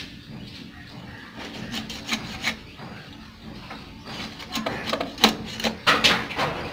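Fish being scraped and sliced against a boti, a curved blade fixed upright on a stand: irregular rasping strokes, with a run of louder scrapes and cuts in the last couple of seconds.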